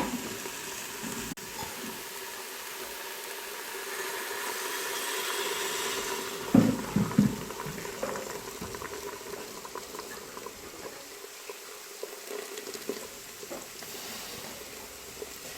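Hot water poured into a pot of frying vegetables, hissing and bubbling as it hits the hot pot, with a few knocks of the pot or utensil about six to seven seconds in.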